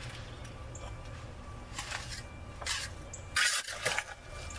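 A trowel scraping wet concrete out of a metal wheelbarrow and packing it into a trench beside a channel drain: a few short scrapes, the loudest about three and a half seconds in, over a low steady hum.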